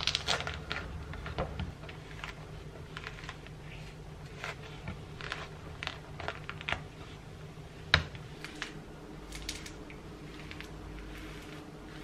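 Pomelo being peeled by hand: the thick rind and pith pulled apart in short, irregular tearing sounds, with pieces set down on a wooden cutting board. A sharp knock about eight seconds in, over a low steady hum.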